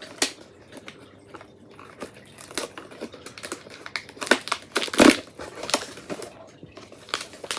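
Cardboard advent-calendar door being pushed open and a packet of coffee being pulled out and handled: irregular crinkling and crackling of card and wrapper, with a sharper crack about five seconds in.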